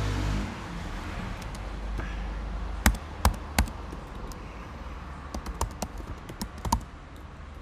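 Computer keyboard being typed on: irregular key clicks, the loudest few about three seconds in and a run of lighter ones near the end, over a low steady hum.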